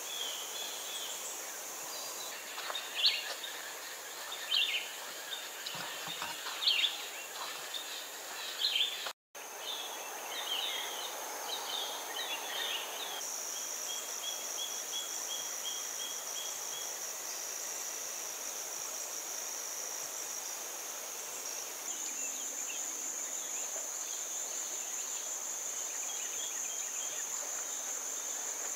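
Forest insects, such as crickets or katydids, keeping up a steady high-pitched chorus. Bird chirps come over it in the first half, the loudest about three, four and seven seconds in. The sound drops out for a moment about nine seconds in.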